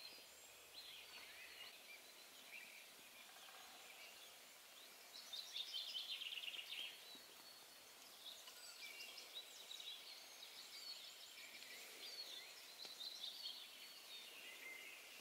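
Faint songbirds singing, in short chirping and trilling phrases, with the loudest phrase about five seconds in, over a quiet background hiss.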